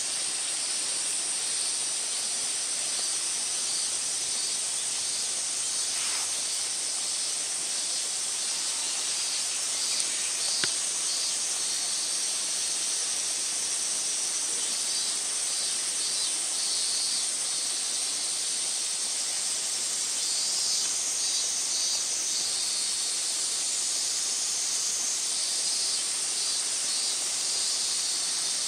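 Insects chirping outdoors: a steady high-pitched drone with rapid repeated chirps, and a couple of faint clicks.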